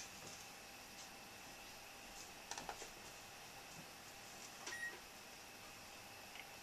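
Quiet room with a faint, steady high whine, and a few soft squeaks and scratches of a felt-tip marker on a whiteboard, about two and a half and five seconds in.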